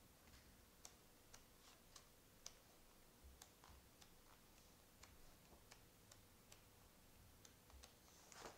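Very quiet leafing through a large hardcover picture book with thin offset-paper pages: faint scattered paper ticks and small rustles as the pages are turned, with a louder page swish near the end.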